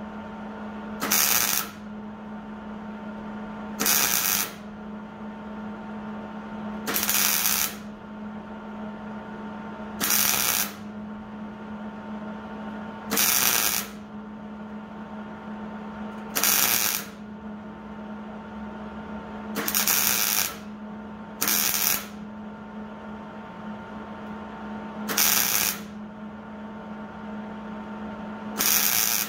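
MIG welder laying tack welds on the sheet-steel lower door post of a truck cab: about ten short bursts, each under a second, roughly every three seconds, over a steady low hum.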